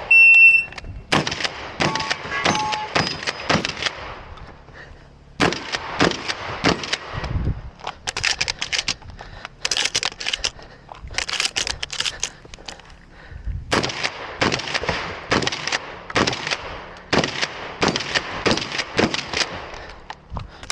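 A shot timer's start beep, then a shotgun fired in fast strings of shots at steel poppers, with a few short breaks between strings. Brief metallic ringing from hit steel is heard about two to three seconds in.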